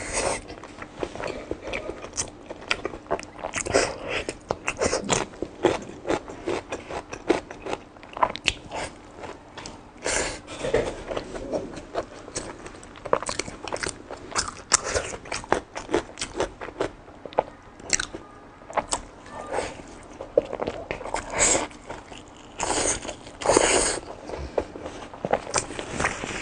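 Close-miked mukbang eating: big crunchy bites and chewing, with a dense run of irregular crackling clicks and smacks.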